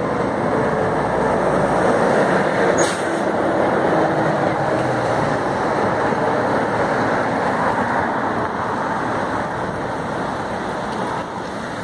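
Heavy lorries and escort vehicles passing close by on the road, a loud steady noise of engines and tyres. There is one brief click about three seconds in.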